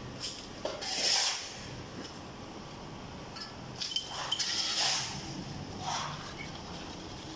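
Rubble and stones being shovelled or scraped, heard as short bursts of scraping with clinks of stone, a few seconds apart.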